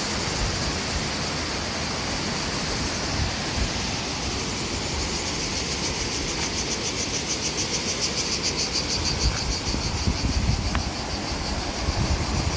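Steady rush of the Selckë waterfall, with cicadas buzzing in a high, rapidly pulsing drone that swells in the middle.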